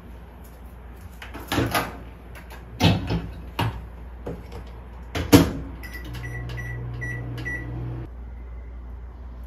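Several sharp knocks and clatters, like a cupboard or appliance door being opened and shut. Then a household appliance runs with a steady low hum for about two seconds, with a quick run of short, high beeps over it, and cuts off suddenly.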